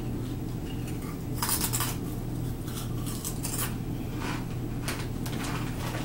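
Crunching of ridged potato chips (Ruffles sour cream and onion) being bitten and chewed: a series of crisp crunches, the loudest about a second and a half in and more every half second or so afterwards, over a steady low hum.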